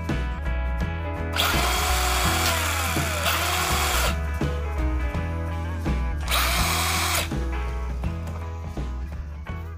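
Tamiya TT-02D RC car's electric motor and gear drivetrain running the wheels up with the car held in the air, two whirring bursts. The first lasts about two and a half seconds and falls in pitch as it slows; the second, about a second long, comes near the middle.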